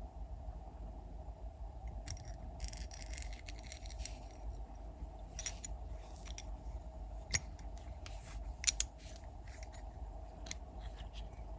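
Small metal parts clinking and scraping as they are handled: a short rattling scrape, then a run of sharp separate clicks, the loudest a double click about nine seconds in, over a steady low hum.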